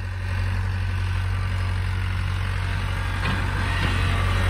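Kobelco SK75UR excavator's diesel engine running steadily while its boom and arm are worked on a test run after repair. There are two faint knocks about three seconds in, and the engine gets slightly louder near the end.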